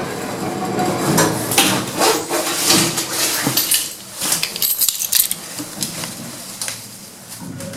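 Metallic clattering and clinking: a rapid, irregular run of knocks and rattles that eases off briefly about halfway through.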